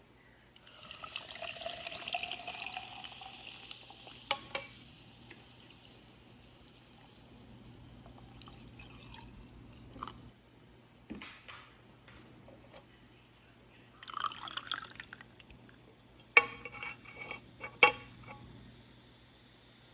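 Liquid pouring into a vessel, its pitch rising as the vessel fills, for several seconds. A few sharp clinks and knocks come later, the loudest two near the end.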